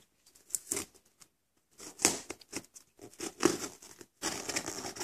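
A knife blade scraping and slitting through the taped seam of a cardboard shipping box, in several irregular strokes, the longest near the end.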